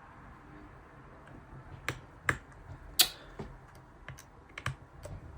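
Scattered sharp clicks and taps of small repair tools on a phone's internal bracket and screws during reassembly. They start about two seconds in, and the loudest comes about a second later.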